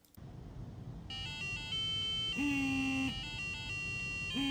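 Flipper Zero's small built-in speaker playing its alarm tune: a beeping electronic melody of stepped notes that starts about a second in, over a faint hiss.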